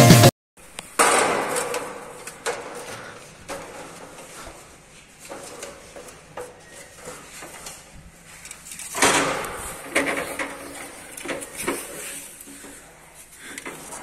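Drum-backed music that cuts off abruptly just after the start, then scattered knocks, clatters and scraping. A louder rush of scraping about nine seconds in is followed by a few sharp knocks.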